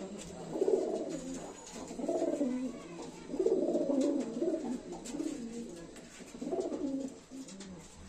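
Madrasi high-flyer pigeons cooing: about five low coo phrases with short gaps between them.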